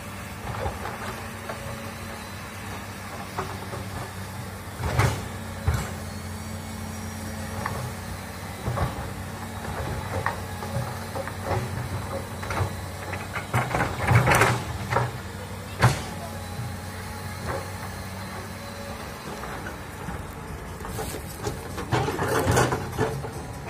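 Komatsu hydraulic crawler excavator's diesel engine running steadily, with repeated sharp clanks and knocks as the machine swings and works; the loudest clatter comes a little past halfway and again near the end.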